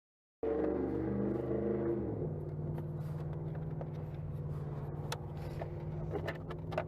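A motor vehicle engine running: its pitch is higher for the first two seconds or so, then drops and settles to a steady hum. A few light clicks come near the end.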